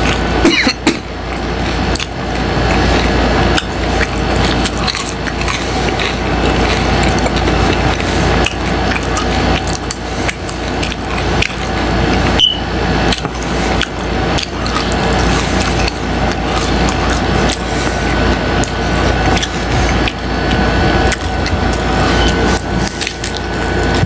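Close-miked chewing of a crunchy taco with fried tripas: a continuous run of crackling crunches in the mouth.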